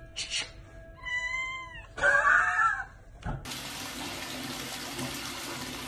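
A cat meows twice, the second meow louder and longer. From about three and a half seconds in, a tap runs steadily into a bathtub.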